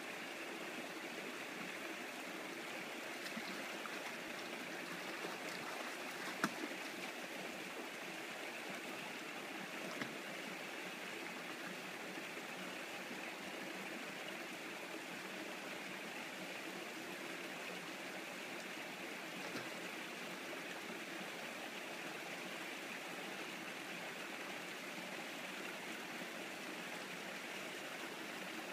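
Mountain stream running steadily over granite rocks, a continuous rushing of water. A few brief sharp sounds stand out above it, the loudest about six and a half seconds in.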